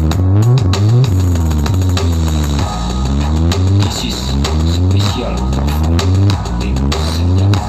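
A large outdoor sound-horeg stack with planar-loaded 18-inch subwoofer boxes plays bass-heavy music. Deep bass notes pulse on and off under a line whose pitch keeps sliding up and down.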